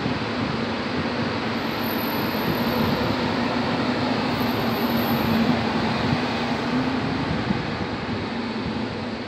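SEPTA electric commuter train running past on the station track and drawing away: a steady rumble of wheels on rail with a low motor hum. It grows loudest about halfway through and fades near the end.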